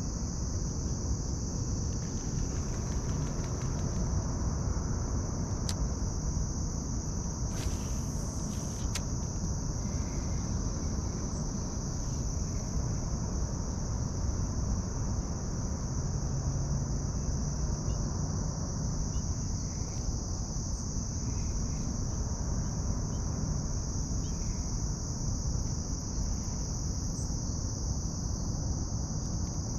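Steady, unbroken high-pitched chorus of insects chirring, over a low, even background noise. A few faint clicks come about eight seconds in.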